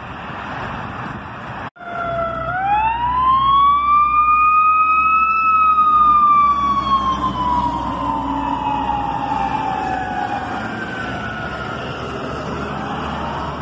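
Fire truck siren winding up to a high wail and then sliding slowly back down in pitch, over the low rumble of the truck's engine; it starts to rise again near the end. Street noise comes before a short dropout about two seconds in.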